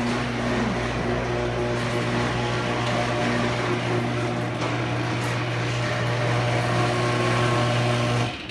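Half-horsepower Chamberlain AccessMaster garage door opener running an old door up: a steady motor hum that runs a little rough, cutting off suddenly near the end.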